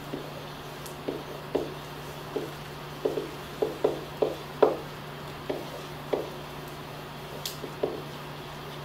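Marker writing on a whiteboard: a string of short, irregular taps and strokes as letters are written, over a steady low hum.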